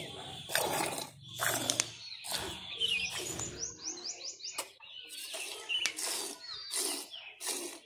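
Milk squirting in a rhythmic series into a steel pail already part full of milk as a cow is milked by hand, about two squirts a second. A bird chirps a quick run of short rising notes midway.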